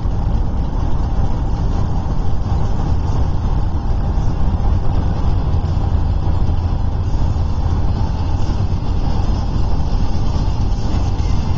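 Steady road and engine noise inside a car's cabin while driving on a highway.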